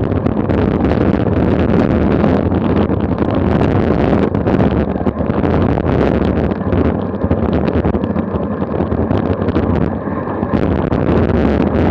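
Steady wind rushing and buffeting over a Garmin VIRB action camera's microphone on a road bike descending at about 20 to 27 mph.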